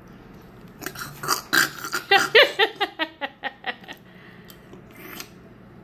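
A few sharp breathy bursts, then a run of laughter: quick pitched pulses, about four a second, that fade out.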